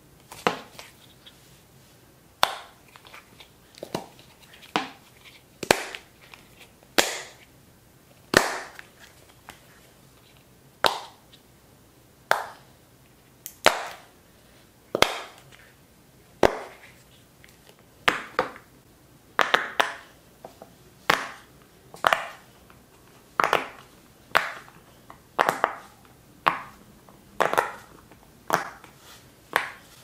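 Silicone push-bubbles of fidget toys, a Simple Dimple and a pop-it, being pressed one at a time. Each press gives a short, sharp pop, about one every second or so, sometimes two close together.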